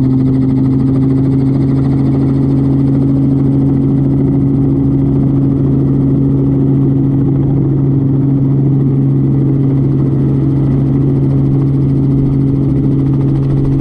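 An engine running at a steady speed, giving a constant low hum.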